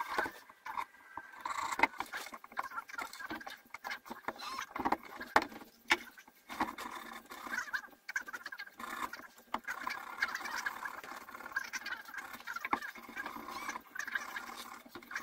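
Irregular scratching and rubbing of a cotton-tipped stick working over a painted carved wooden surface, with quick clicks scattered throughout.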